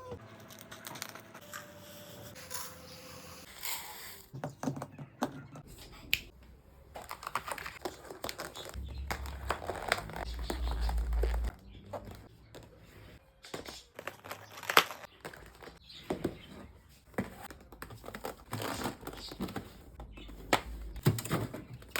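Plastic packaging rustling and crinkling as it is handled, with irregular clicks and knocks, one sharper knock about two-thirds of the way through.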